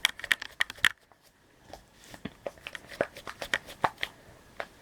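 Scattered soft clicks and rustles of objects being handled close to the microphone, with a brief pause about a second in.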